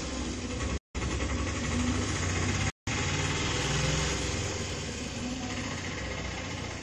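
A steady engine-like running hum with a low drone, like a motor vehicle idling close by. The sound cuts out completely twice, briefly, about a second in and just before three seconds in.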